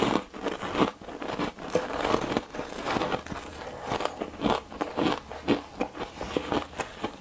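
Chewing a mouthful of soft, foamy frozen green ice: a run of short, irregular crunches, several a second.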